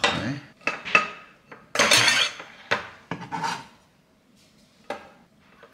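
A spoon and dishes clinking and knocking against a small ceramic bowl, with several separate short knocks and a longer rough scrape about two seconds in.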